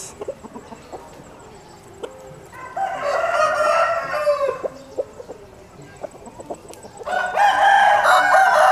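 Roosters crowing twice. The first crow comes about three seconds in and falls away at its end; the second, louder crow starts about seven seconds in.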